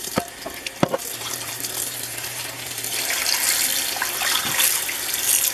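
Tap water running into a cast iron skillet as it is rinsed in a sink. The stream gets louder about halfway through as it pours across the pan. There are a couple of light knocks in the first second.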